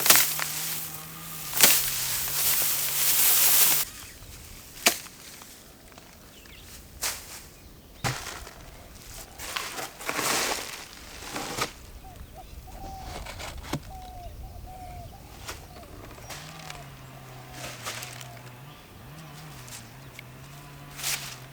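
Hand threshing of dried paddy: rice bundles struck to knock the grain loose, giving irregular sharp strikes a second or more apart with swishing of straw, the longest swish near the start.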